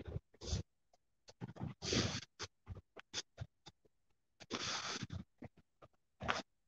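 Rubbing and scratching noise on a handheld phone's microphone, in irregular short bursts and clicks with dead gaps between them. There are longer bursts about two seconds in, around five seconds in, and near the end.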